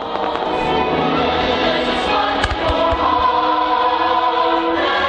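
Choir singing slow, held chords as music for a fireworks display, with a couple of short firework bangs about two and a half seconds in.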